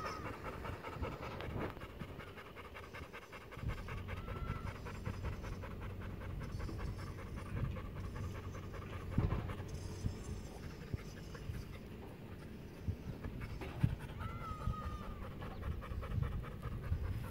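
American pit bull terrier panting steadily with its mouth open and tongue out.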